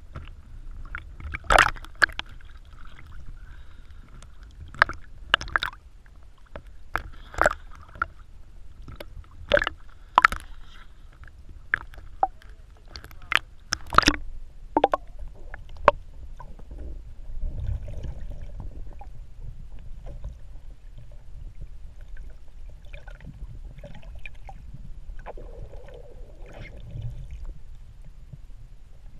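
Underwater sound on a scuba dive: a steady low rumble of water and bubbles, with a run of sharp clicks and knocks, about one a second, through the first half.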